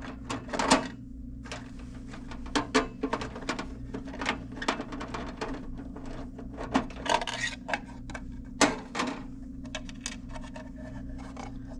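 Screws being backed out by hand from the sheet-metal aluminum cover of a downdraft range hood: irregular light clicks and metallic clinks, over a steady low hum.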